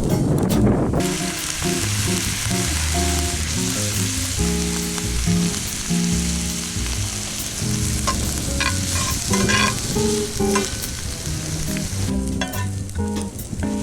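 Food sizzling as it fries in a pan while being stirred, a steady hiss that starts about a second in and fades near the end, with a few light utensil clicks. Background music plays underneath.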